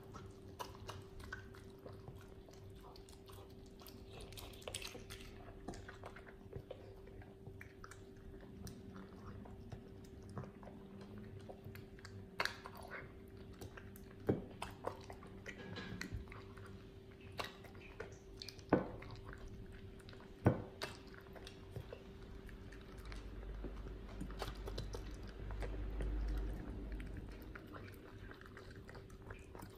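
Miniature dachshund eating raw duck hearts and ground hare from a ceramic bowl: soft, wet chewing and licking with scattered sharp clicks, a few louder ones in the middle.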